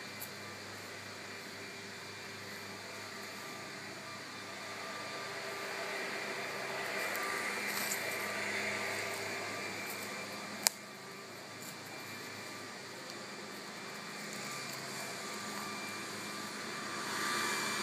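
Steady mechanical hum with a faint whine, swelling louder about six to nine seconds in and again near the end. One sharp click about eleven seconds in.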